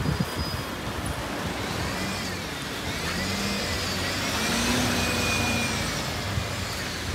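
A bus driving past, with a whine that rises and falls in pitch over road noise and grows loudest about five seconds in.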